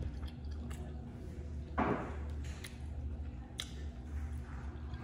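Close-miked eating sounds: small wet clicks and smacks as meat is pulled off a sauced chicken wing with the fingers and eaten, with one louder squelch about two seconds in.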